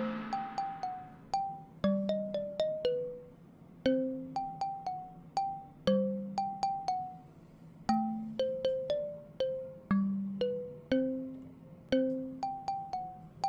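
Light background music: a bouncy melody of short, quickly fading bell-like notes, three or four a second, over a low note that falls about every two seconds.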